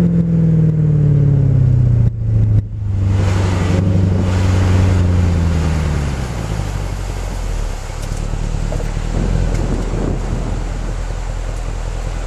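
Mercedes-Benz CLK550's V8 exhaust with the revs falling over the first two seconds, then a steady low drone after a brief break. The drone fades out about six seconds in, leaving a low rumble.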